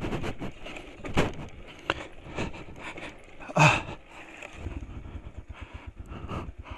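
Motorcycle engine running at low revs while the bike jolts over a rocky road, with irregular knocks and clatter. There is a loud brief burst about three and a half seconds in, and after it an even, rapid low pulsing of the engine.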